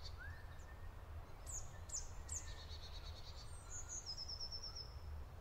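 Faint small-bird calls: three quick high calls sweeping downward around the middle, each running into a short trill, and near the end a run of about seven quick even high notes, over a steady low rumble.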